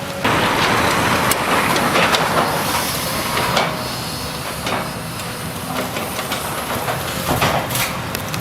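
Demolition machinery running steadily under a loud hiss, with scattered cracks and knocks of debris breaking. The noise jumps up sharply just after the start.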